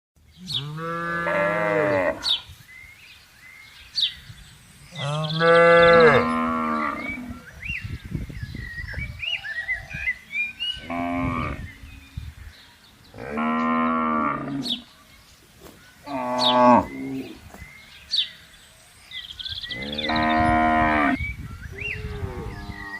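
Cattle mooing: about six long, drawn-out moos, each lasting a second or two with pauses between them, some from different animals. Faint short high chirps sound between the moos.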